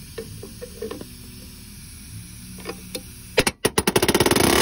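Pneumatic mini palm nailer driving a 10d nail through a steel L90 shear transfer tie into a wooden top plate. A few light knocks and clicks as the nail is set, then, about three and a half seconds in, a rapid loud hammering of many blows a second that stops suddenly near the end.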